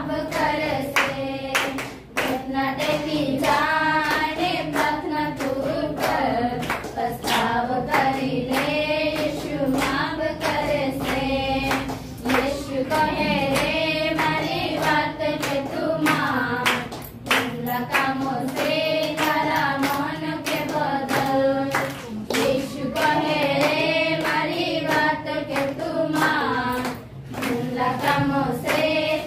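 A small group of women singing a Gujarati devotional song together, clapping their hands along to a steady beat.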